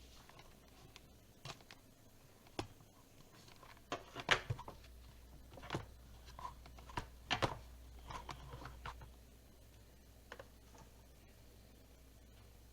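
Kitchen food-prep handling noises: irregular light knocks and clicks, loudest about four seconds and seven and a half seconds in.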